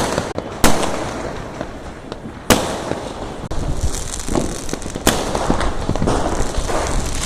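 Fireworks going off: three sharp bangs about two seconds apart, each fading out after it, and from about halfway a dense crackling of many smaller pops.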